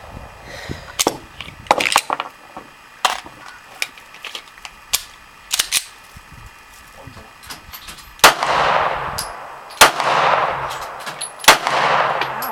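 Glock 19 Gen 4 9mm pistol firing handloaded rounds: a string of sharp shots, the last three the loudest, about a second and a half apart, each followed by a long echo.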